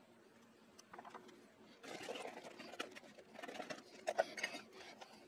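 Clothing rustling and brushing close to the microphone, with a few light clicks and knocks, the sharpest about four seconds in.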